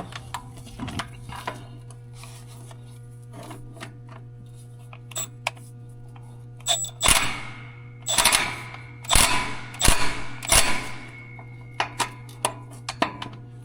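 Scattered knocks and clinks of hand tools and metal parts being handled during engine repair work, with a cluster of louder clanks about seven to eleven seconds in, over a steady low hum.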